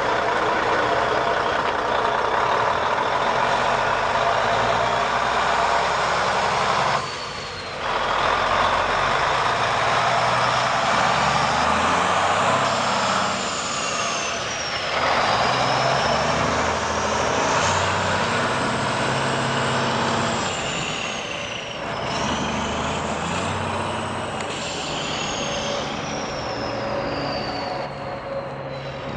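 Cummins N14 six-cylinder diesel of a 1995 Freightliner FLD120 semi pulling under load, its note dropping away briefly three times, about 7, 14 and 22 seconds in, as it goes through gear changes. A high whistle rises and falls with the engine.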